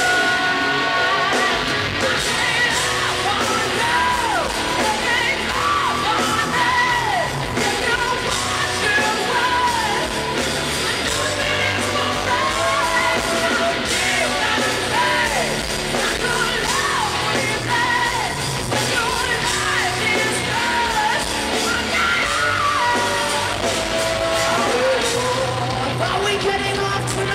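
A hard rock band playing live at full volume, with loud wailing, shouted vocals over the music.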